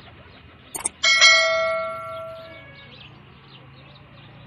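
A short click followed by a single bright bell ding that rings out and fades over about a second and a half: the subscribe-button and notification-bell sound effect.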